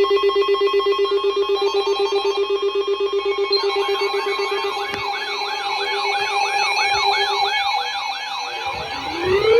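Electronic alert tones of an Emergency Alert System broadcast: a rapidly pulsing steady tone with higher steady tones above it. About a third of the way in, a siren-like wail joins, rising and falling about twice a second. Near the end a rising sweep begins.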